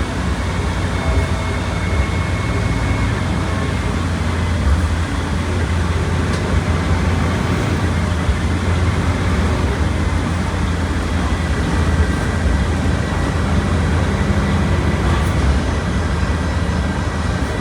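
Volkswagen Volksbus 17.230 Euro 6 bus under way, its diesel engine running at a steady pitch over road noise.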